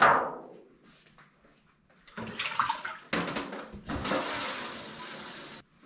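A single sharp knock, then water running for about three and a half seconds before it shuts off suddenly.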